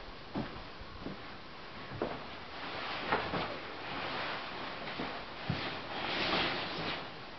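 A few soft footsteps, then bedding rustling as someone climbs onto a bed and pulls a comforter over. The rustling is loudest about six seconds in.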